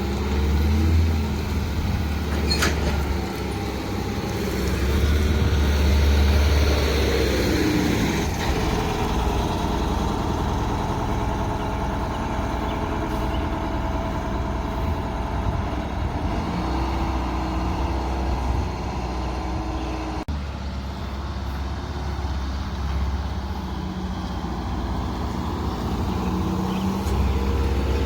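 Diesel engine of a heavy vehicle running as it is moved slowly, its revs and loudness rising and falling a few seconds in.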